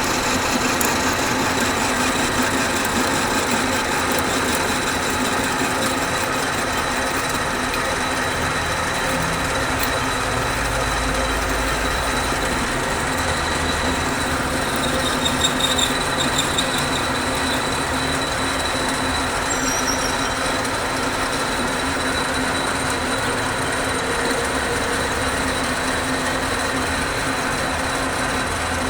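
Metal lathe running steadily, a continuous mechanical noise with a low hum and a thin high whine.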